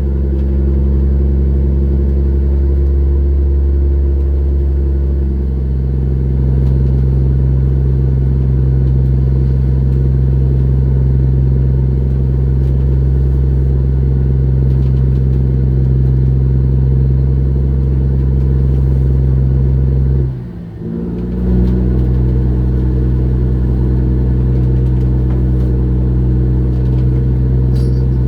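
Fishing trawler's diesel engine running steadily with a loud low hum. Its note shifts about five seconds in, and about twenty seconds in the pitch and level dip briefly, then come straight back.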